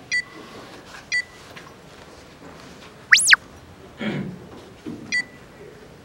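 Electronic countdown-timer beeps, short and high: two a second apart, then another near the end. About three seconds in comes a loud, quick swoosh effect that rises and falls in pitch.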